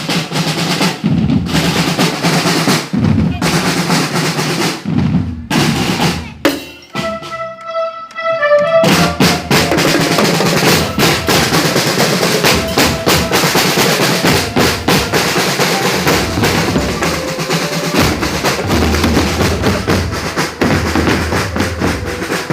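A percussion troupe playing snare and bass drums, with rolls and quick strikes. About seven seconds in the drums stop for two seconds while a held, whistle-like tone sounds, then the drumming comes back in and keeps going.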